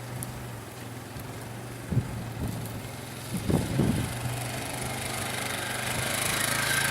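A small engine running steadily at low speed, with a hiss that grows louder over the last couple of seconds.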